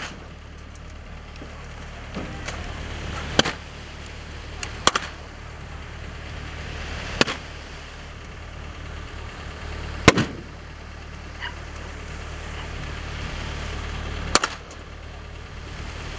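Single gunshots from rifles firing blanks in a battle reenactment: about six loud sharp reports a few seconds apart at irregular intervals, with a few fainter pops between. A steady low rumble runs underneath.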